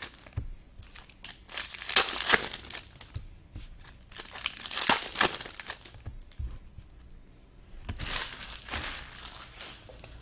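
Trading-card pack wrappers being torn open and crinkled by hand, in irregular rustling bursts with a brief lull about two-thirds of the way through.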